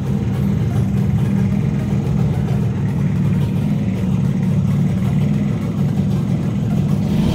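Suzuki AX100's single-cylinder two-stroke engine idling steadily.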